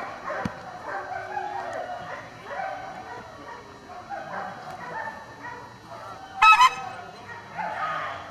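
A dog barks twice in quick succession, sharp and loud, about six and a half seconds in, over a low background of voices.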